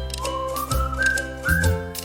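Background music: a whistled melody stepping upward over a bass line and light, regular percussion.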